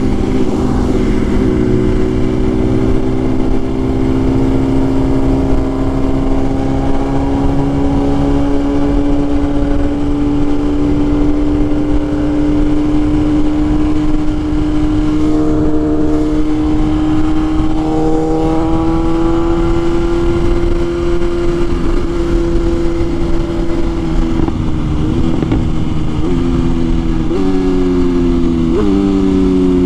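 BMW S1000RR inline-four sport bike engine running under steady throttle, its pitch slowly creeping up for about twenty seconds, with a constant rush of wind. Near the end come several downshifts in quick succession, each a short jump in revs followed by a falling note as the bike slows.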